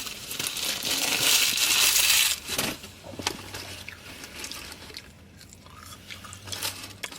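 Paper food wrapping crinkling and rustling loudly for about two seconds as it is handled, then quieter scattered rustles and clicks.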